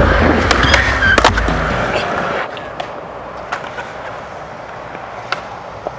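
Skateboard wheels rolling over pavement, with a few sharp clacks of the board. Music plays over the first two seconds, then drops away.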